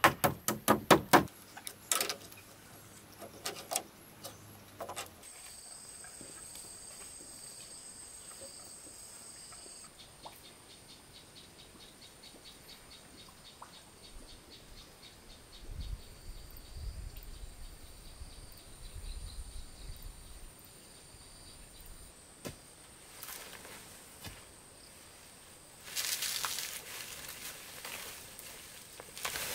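A quick run of hammer blows nailing down a corrugated roofing sheet in the first second, then a steady high insect chirring, with rustling and scraping near the end.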